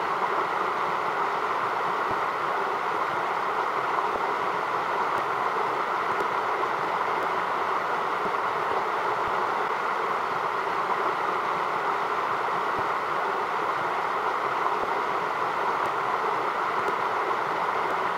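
Steady rushing of a creek's flowing current, an even hiss without a break.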